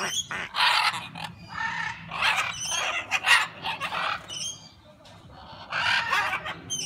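Parrots screeching at one another: a string of harsh, raspy squawks, some short and some drawn out, with a few brief high whistled notes in between and a short lull a little past the middle.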